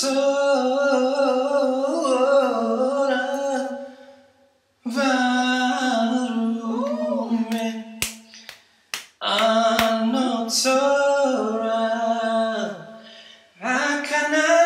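A man singing unaccompanied in a smooth R&B style, long held notes with bending vocal runs, in three phrases with short breaks. Two sharp clicks sound in the middle break.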